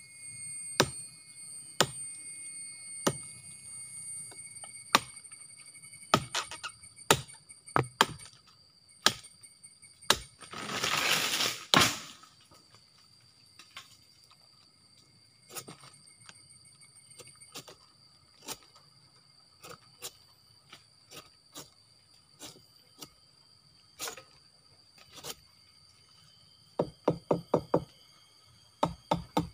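Machete chopping through a sugar palm's (aren) flower stalk, the cut that opens it for sap tapping: sharp single strokes about a second apart, a longer rough rasp near the middle, then scattered knocks and a quick run of taps near the end.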